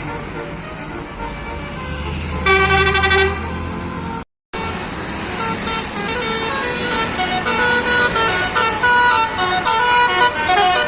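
Bus's Basuri 'telolet' musical air horn: one loud held blast about two and a half seconds in, over a bus engine's low running. After a brief break in the sound, the horn plays a fast melody of short, changing notes that grows louder toward the end.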